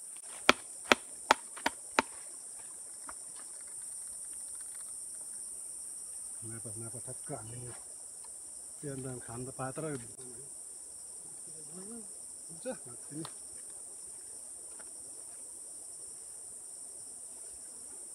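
Steady high-pitched drone of forest insects. It opens with five sharp knocks in quick succession, about three a second, within the first two seconds.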